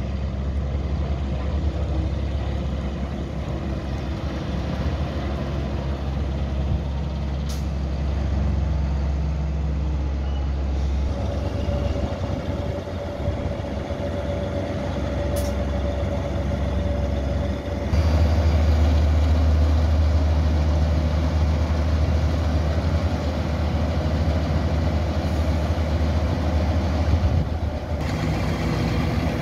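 John Deere tractor diesel engines running steadily under load while a tipping silage trailer is raised to unload. The engine note changes abruptly about 11, 18 and 28 seconds in.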